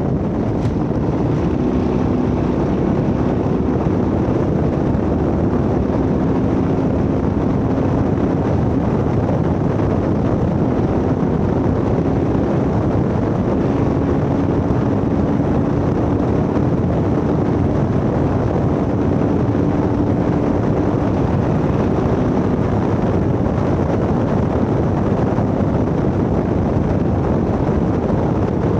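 Vintage Ford Bronco race truck driving at speed off-road: a loud, steady engine drone mixed with wind and drivetrain rumble, its engine pitch stepping up and down now and then.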